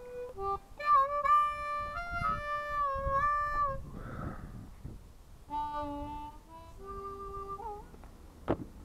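Harmonica played in long held notes and chords, stepping between a few pitches with short breaks. A single sharp knock near the end.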